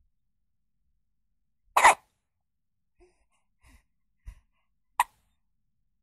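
Newborn baby hiccuping: a loud hiccup about two seconds in and another sharp one about five seconds in, with a few faint small sounds between them.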